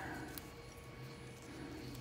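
A faint steady hum, with a light click or two as hands wrap masking tape around a drill bit.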